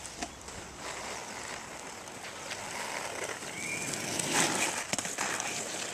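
Inline skate wheels rolling on asphalt: a steady rolling noise that swells briefly about four seconds in.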